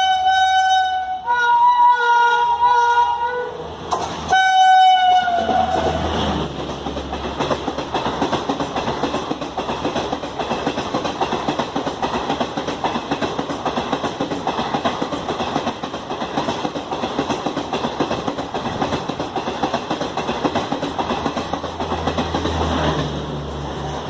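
Express train's dual-tone horn sounding in three blasts: one note, then a two-note chord, then a last blast that slides down in pitch. The coaches then rush past at speed with a steady clickety-clack of wheels over the rail joints, which drops away near the end.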